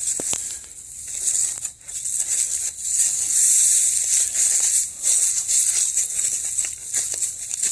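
Footsteps crunching through dry leaves and brush on a woodland floor, a rustle roughly once a second, with a few sharp snaps of twigs.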